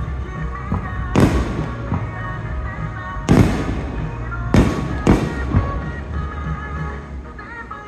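Aerial fireworks bursting with sharp, echoing booms: one about a second in, one around three and a half seconds, then a quick run of three near the middle. Music plays steadily underneath.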